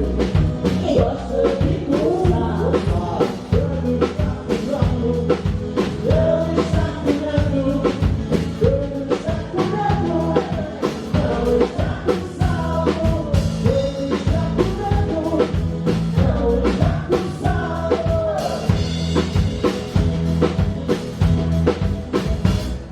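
Live band music: a drum kit keeps a steady beat under a bending melody line, with bass underneath, heard from on stage.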